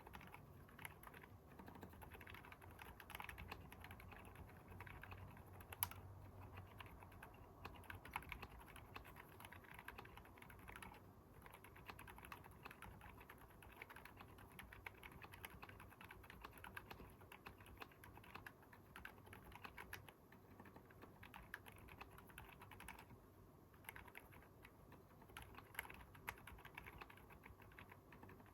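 Continuous quiet typing on a Keychron K10 aluminium hot-swap keyboard with stock Haimu Sea Salt silent switches and foam-dampened case: a steady stream of soft, muted keystrokes, with one sharper click about six seconds in.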